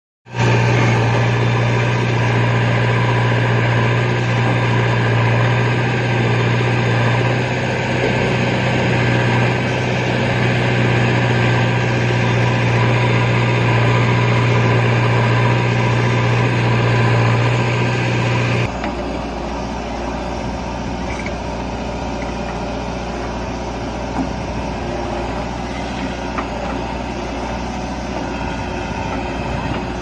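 JCB 3DX backhoe loader's diesel engine running steadily as it digs and loads soil, a loud deep drone. A little past halfway it drops suddenly to a quieter, more distant engine sound.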